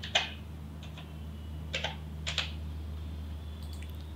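A few separate taps on a computer keyboard, about four in the first two and a half seconds, over a low steady hum.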